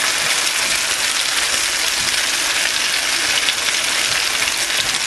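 Potato and egg omelette mixture frying in hot coconut oil in a frying pan: a steady crackling sizzle.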